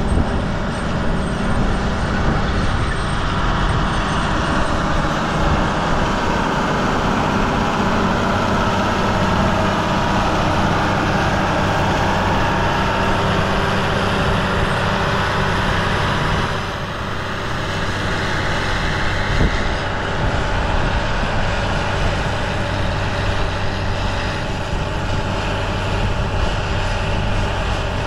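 Diesel engine of a John Deere tractor running steadily under load as it pulls a multi-row seed planter across the field, a continuous drone with a low hum.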